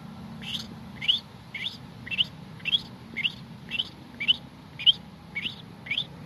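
A man's voiced imitation of black-capped chickadee chirps, made with a whistle and a gargling uvula: a steady series of about eleven short, quickly rising chirps, about two a second.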